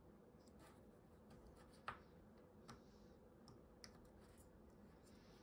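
Faint small clicks of a tiny precision screwdriver tip working against the lens and housing of a micro display optical module as a lens is pried out: a handful of light clicks, the sharpest about two seconds in.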